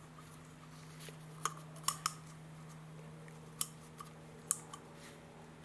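About six light, sharp clicks and taps as the oil filter housing cap and its O-ring are handled and worked with a small tool, over a faint steady low hum.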